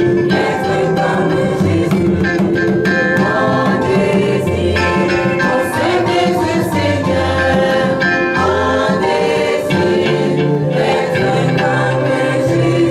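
Mixed church choir of women's and men's voices singing a hymn together in harmony.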